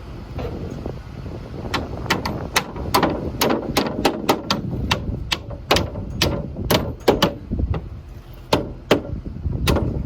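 Nails being driven into wooden roof framing: an uneven run of sharp knocks, a couple a second, starting about two seconds in.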